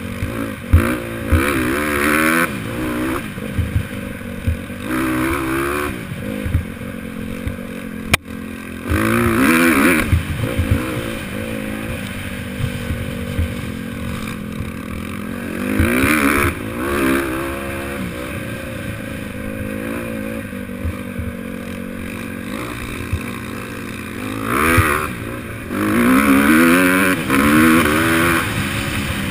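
Honda CRF150R dirt bike's four-stroke single-cylinder engine revving in repeated surges, its pitch climbing under throttle and dropping back between. Short knocks and rattles of the bike running over rough dirt track come through underneath.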